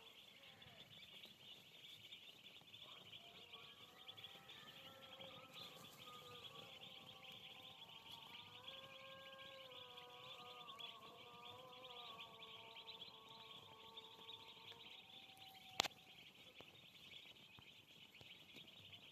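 Faint, dense, continuous peeping of a large flock of poultry chicks. A faint held tone wavers slowly in the background through the middle of the stretch, and there is a single sharp click near the end.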